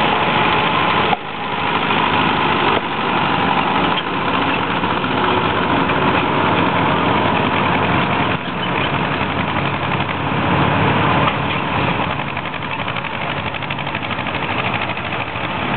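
Engine of a vintage tractor on steel wheels running steadily at low speed as it drives slowly past.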